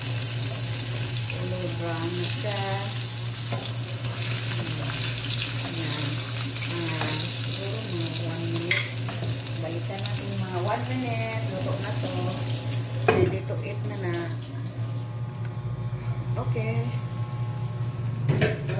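Fish pieces frying in oil in a nonstick pan, a steady sizzle that thins out about three-quarters of the way through. There is a single sharp knock about two-thirds of the way in.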